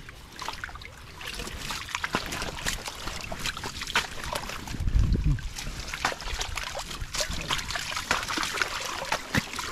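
Shallow water splashing and trickling, a run of many small sudden splashes from water stirred by hand, with one louder low thump about five seconds in.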